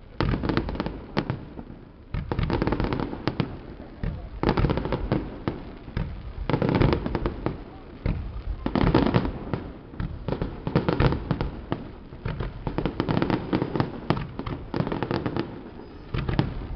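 Fireworks display: rapid volleys of shell bursts and bangs, coming in waves about every two seconds.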